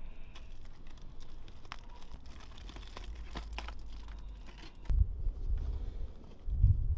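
Aluminium foil crinkling as a sandwich is unwrapped, a run of small sharp crackles. Two low thumps come near the end.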